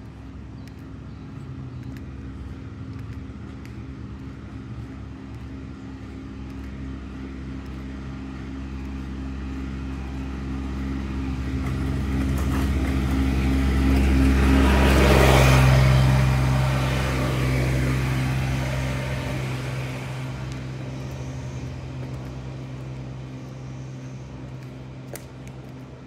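A zero-turn riding lawn mower's engine running at a steady pitch as the mower approaches, passes close by about fifteen seconds in, and fades away.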